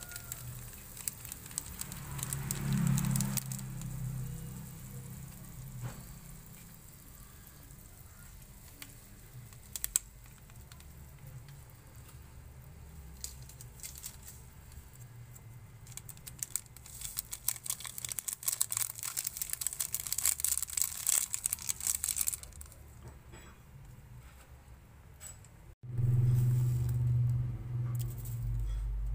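Chili spice paste frying in oil in a wok, sizzling with scattered crackles that grow thicker a little past halfway. A low hum comes in twice, briefly about two seconds in and again near the end.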